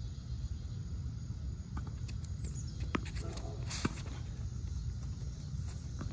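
Tennis ball being played on a hard court: two sharp pops about a second apart, the second and louder one a racket striking the ball, over a steady low rumble.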